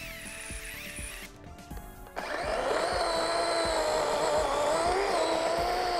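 DeWalt XR compact battery chainsaw cutting through a log, its electric motor whining under load with the pitch wavering as the chain bites. It gets much louder about two seconds in, after a brief quieter moment. Background music with a steady beat runs underneath.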